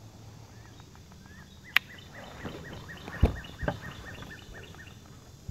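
A bird sings a quick run of short repeated chirps, about four a second, over faint outdoor background noise. A single sharp click comes about two seconds in, and two dull thumps follow a second or so later.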